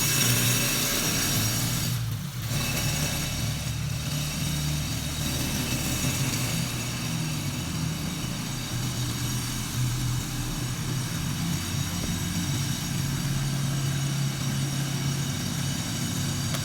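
A motor running steadily with a low, slightly wavering hum, dropping out briefly about two seconds in.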